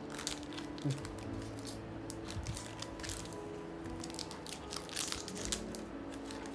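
Packaging or accessories being handled: a run of irregular crinkles, clicks and light knocks, with faint steady tones behind.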